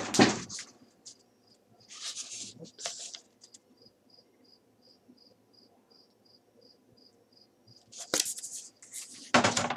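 A paper poster sheet handled and rustled close to the microphone, once about two seconds in and again for longer near the end. Between the rustles, faint short high chirps repeat evenly about three times a second.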